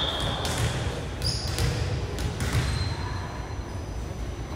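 Ball bouncing on a gym floor several times in a large echoing hall, just after a referee's whistle blast cuts off.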